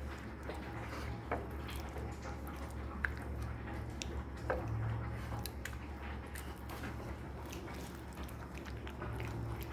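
Raw chicken breast squelching wetly as gloved hands rub it in an oily spice marinade, with a few small clicks and a steady low hum underneath.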